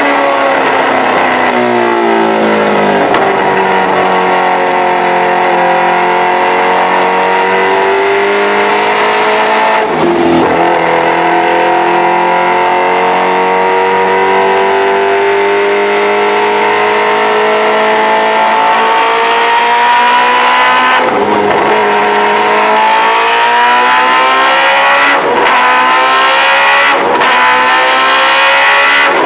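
Kawasaki Ninja H2R's supercharged inline-four running under load on a dyno. The engine note climbs slowly in pitch and breaks briefly about ten seconds in and three more times in the last third, where it shifts up.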